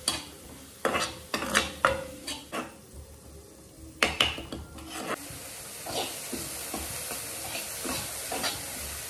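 A metal spatula scrapes and stirs chopped vegetables sautéing in a little oil in a black non-stick kadai, with a steady sizzle underneath. The strokes come in quick clusters in the first half, then thin out, leaving mostly the sizzle with a few light scrapes.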